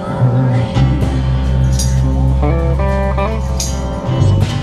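Live band playing outdoors: acoustic and electric guitars over a steady bass line, in a bluesy style.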